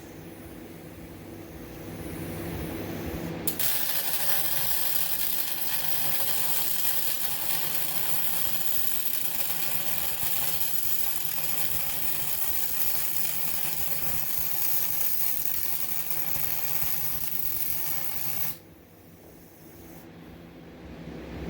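Vulcan MigMax 215 MIG welder laying a weld bead on the steel base: a steady, dense crackling hiss of the welding arc that starts about three and a half seconds in, holds for roughly fifteen seconds and cuts off suddenly. A low steady hum before and after.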